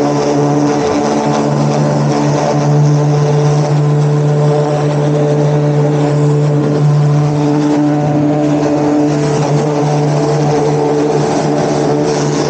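Electric pressure washer running steadily under load: a constant-pitched motor and pump hum over the hiss of the high-pressure water jet spraying.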